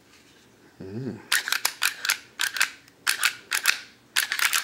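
Taurus G3C 9mm pistol's slide being worked back and forth by hand, each stroke a quick cluster of sharp metallic clicks, about five strokes starting a little over a second in. The slide rails are freshly oiled with motor oil, and the action runs smoothly.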